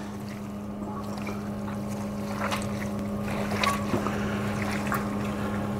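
Gloved hands pulling apart a tender smoked pork shoulder, with soft wet squishing and a few faint clicks of the meat over a steady low hum.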